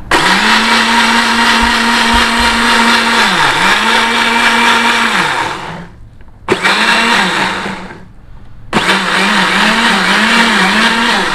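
Small electric countertop blender grinding chilies with water, run in three goes: a long run, a brief pulse about six and a half seconds in, then another run from about nine seconds. Its motor pitch dips and wavers as the blades meet the load.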